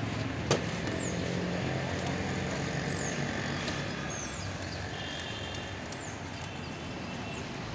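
Steady street din with a low traffic hum, and a metal spatula working toppings on a dosa griddle, with one sharp clink about half a second in.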